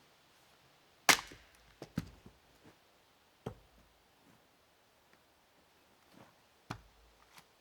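Sharp knocks of firewood pieces striking wood. The loudest comes about a second in, followed by a quick run of smaller clatters, with further knocks later and near the end.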